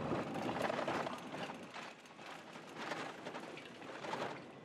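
Vehicle rattling and shaking over a washboarded dirt road: a dense run of small clicks and knocks.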